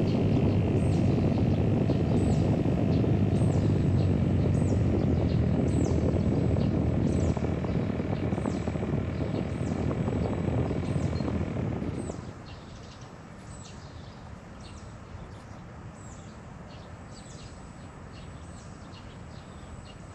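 Electric RC seaplane's motor and propeller running, heard as a loud rushing noise, that drops off sharply about twelve seconds in as the plane comes down to land.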